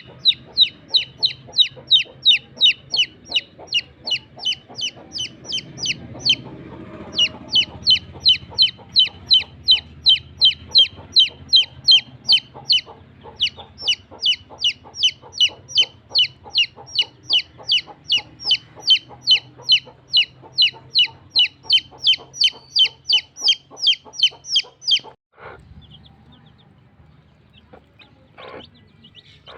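A baby chick peeping loudly and repeatedly in short, high, downward-sliding peeps, about three a second. The peeps break off briefly about six seconds in and stop about 25 seconds in.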